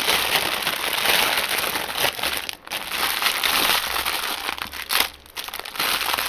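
Small plastic bags of diamond-painting drills crinkling and rustling as they are handled and packed away, with short breaks about two and a half seconds in and again about five seconds in.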